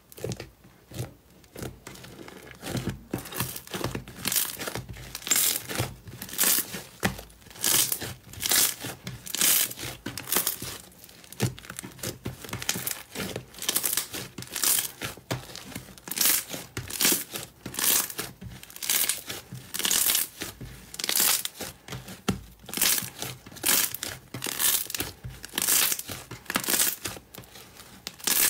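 Slime being squeezed and pressed by hand, crackling and crinkling in repeated squeezes at just over one a second.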